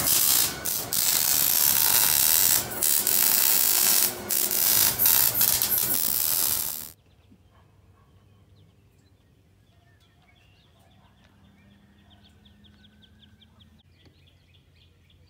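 Reciprocating saw cutting through a steel exhaust pipe under the car to remove the muffler: a loud, harsh rasp with brief pauses that cuts off suddenly about seven seconds in. After it, faint outdoor quiet with small bird chirps.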